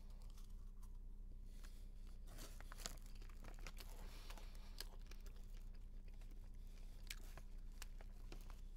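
Faint crunching of a mouthful of popcorn being chewed, soft irregular crunches over a low steady hum.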